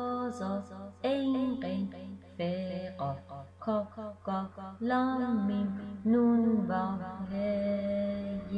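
Music: a melody of held notes, some bending in pitch, over a steady low drone.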